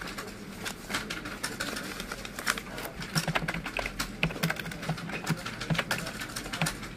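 Computer keyboard keys clicking in quick, irregular runs: data being typed in from handwritten paper slips. The keystrokes come sparser at first and faster and denser from about two and a half seconds in.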